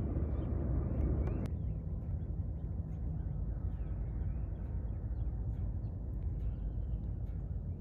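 A low, steady rumble with birds chirping here and there over it; the rumble thins a little about a second and a half in.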